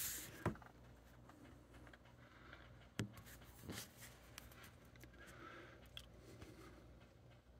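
Faint indoor room tone with a steady low hum, broken by a few sharp knocks and clicks from the phone being handled: one about half a second in, another at about three seconds, and smaller ones after that.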